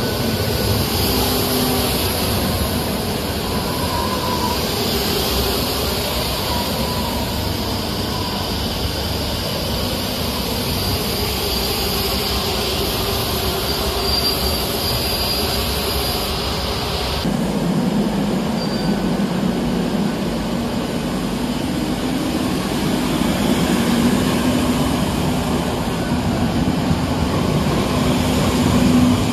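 Madrid Metro train running on the rails, with a thin high wheel squeal over the rumble. About two-thirds of the way through the sound changes abruptly to a lower, steady hum.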